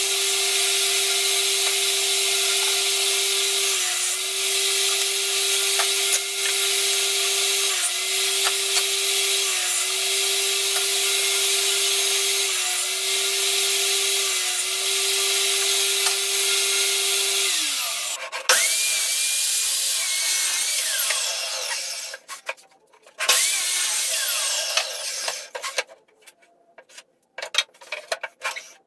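Table saw running steadily, its pitch dipping briefly about five times as wood is fed through the blade. It is switched off about 17 seconds in and winds down, followed by scattered knocks and handling clatter with short silent gaps.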